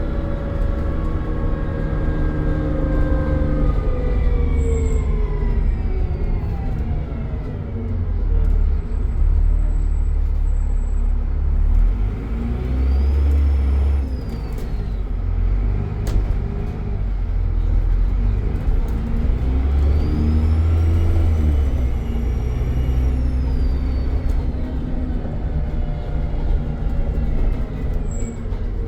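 Dennis Trident double-decker bus's diesel engine and turbocharger under way: a heavy rumble with the engine note and turbo whistle falling away over the first several seconds, then a high turbo whistle rising and falling again twice as the revs build and drop. A single sharp click about halfway through.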